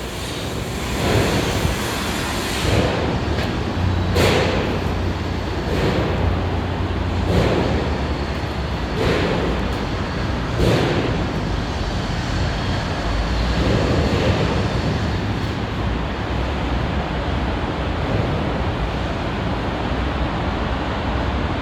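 Wire-feed arc welding on a structural steel column joint: the arc gives a steady crackling hiss, with brief louder surges about every second and a half.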